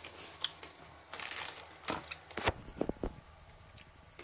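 Dry instant noodle block and its torn plastic packet being handled: a string of irregular light clicks, crackles and crinkles.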